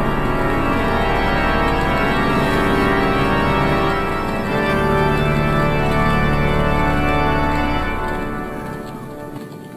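Organ music with held chords, fading out near the end.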